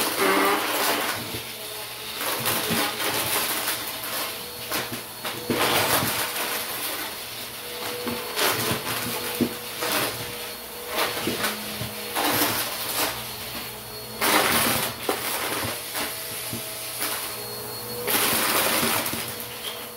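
Bissell upright vacuum cleaner running steadily while sucking up plastic water bottle caps and fake coins from a carpet, the pieces clattering and rattling through the nozzle. Several louder surges of clatter come as it is pushed through thicker patches of caps.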